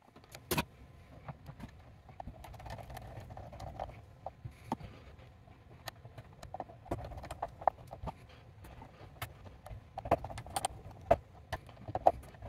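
Scattered clicks, taps and short rubbing noises from hand work on wiring: wire strippers taking insulation off conductors, then a screwdriver fastening the wires into a terminal block.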